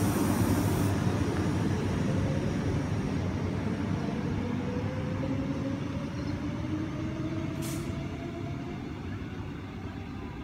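Queensland Rail EMU electric multiple-unit train pulling away from the platform: steady running noise with a motor whine that slowly rises in pitch as it accelerates, fading as the train moves off.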